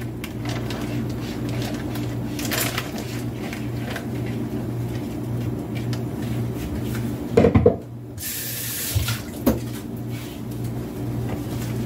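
Raw meat being emptied into a plastic freezer bag: bag rustling and soft knocks over a steady low hum, with a short burst of hiss about eight seconds in.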